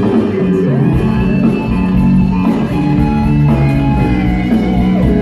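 Live rock music: electric guitar playing sliding, bending notes over bass guitar.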